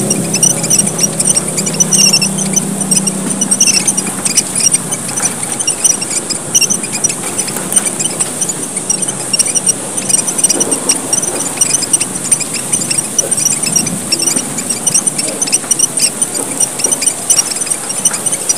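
Many small red finches, emprit merah papua, chirping in a rapid, overlapping chatter of short high calls: the lively 'gocar' call used as a lure. A constant high hiss runs under it, and a low hum fades out in the first few seconds.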